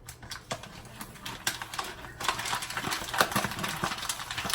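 Spoon stirring coffee in a mug: a few separate clinks, then from about two seconds in a dense run of rapid clinking and scraping for a couple of seconds.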